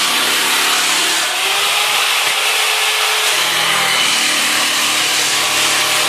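Corded power saw cutting a wooden sheet, running loud and steady with a slight shift in pitch partway through.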